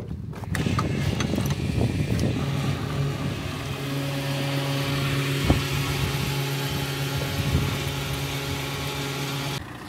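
Fuel station pump running: a steady motor hum with fuel rushing from the nozzle, and a single click midway. It cuts off suddenly near the end.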